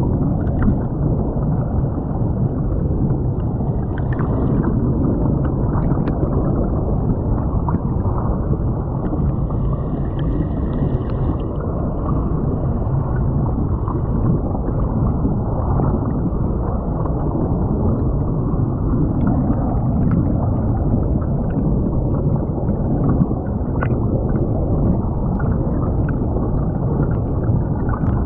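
Creek water flowing and gurgling over a submerged camera's microphone, heard from underwater as a steady, muffled rush with a few faint ticks.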